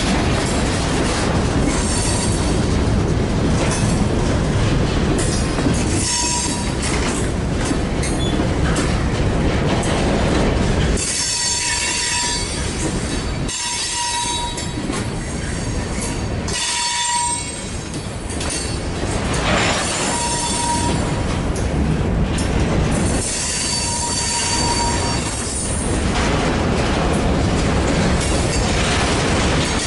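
Covered hopper cars of a freight train rolling past close by: a steady rumble and clatter of steel wheels on the rails, with short high-pitched wheel squeals breaking in about six times.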